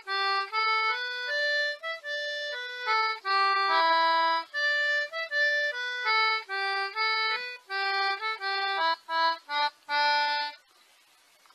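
A concertina playing a simple, slow melody one held note at a time, stopping near the end.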